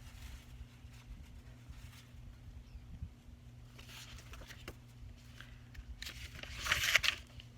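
Faint steady hum, then a short papery rustle near the end: a page of a picture book being turned.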